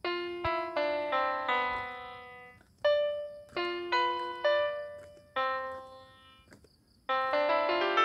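Background piano music: single notes and chords struck one after another, each fading away, with a short pause about six seconds in before a fuller chord.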